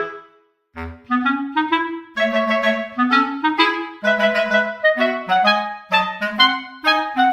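Background music: a melody of quick, separate notes that breaks off briefly just after the start, then carries on.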